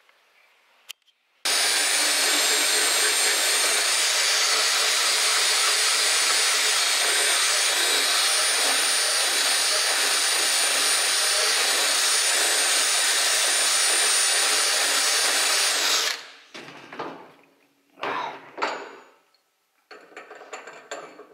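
Electric die grinder running steadily under load with a high whine, grinding metal out of a Lambretta frame's engine-mount bore so an offset mount cone will sit flush. It starts abruptly about a second and a half in and stops about 16 seconds in, followed by a few short knocks as the part is tried in the hole.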